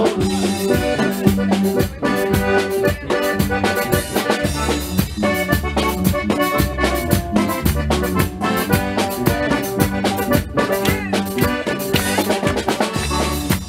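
Upbeat dance music with a steady drum beat and bass.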